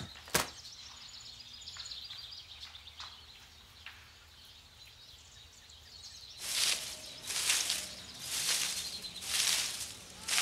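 Quiet background with faint bird chirps and a sharp click just after the start. From about six seconds in comes a run of swishing noises, about one a second.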